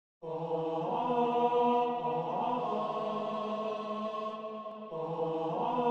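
Background music of sustained, droning chant-like tones, shifting to a new chord about five seconds in.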